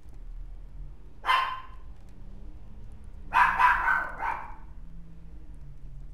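Mixed-breed puppy barking in short, high yips: one bark about a second in, then three more in quick succession about three and a half seconds in.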